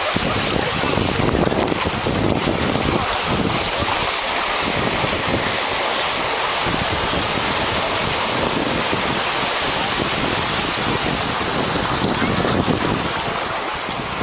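Small waves breaking and washing up a sandy beach, a steady rush of surf mixed with wind buffeting the microphone.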